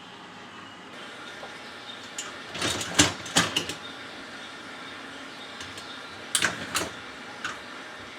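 Dishwasher upper rack being moved on its metal rack adjusters, with clicks and rattles of the rack and adjuster mechanism in two clusters, about three seconds in and again about six and a half seconds in.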